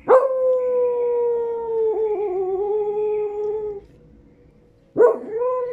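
A dog howling, begging for a tamale: one long howl that sinks slowly in pitch over about three and a half seconds, then a second howl begins near the end.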